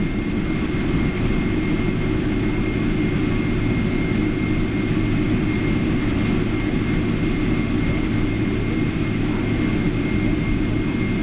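Steady cabin noise inside a Boeing 777-300ER: its GE90 jet engines and the airflow heard through the fuselage as an even rush, with a constant low hum and a faint high whine.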